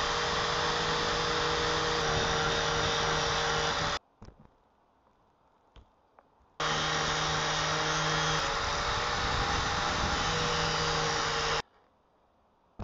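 Craftsman electric angle grinder running and grinding down a plastic wiring connector, trimming an 8-pin plug to a 6-pin. Two steady passes of about five seconds each, with a short quiet pause and a few small handling clicks between.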